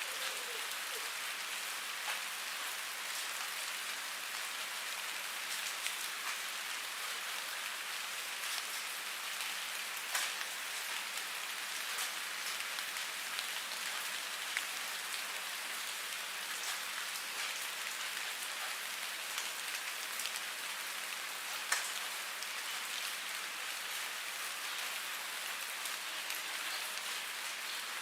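Steady rain falling on a surface: an even hiss with occasional sharper ticks of single louder drops.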